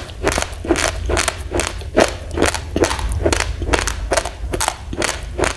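Raw uncooked rice grains crunched between the teeth in steady chewing, about four crunches a second, over a low steady hum.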